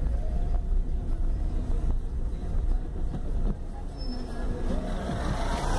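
Car cabin noise while driving slowly over a cobblestone street: a steady, uneven low rumble from the tyres and engine, with a city bus running just alongside. A louder rushing noise builds near the end.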